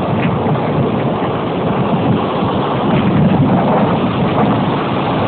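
Thunderstorm wind and heavy rain, with the gusts buffeting the microphone in a loud, steady rush that swells slightly partway through.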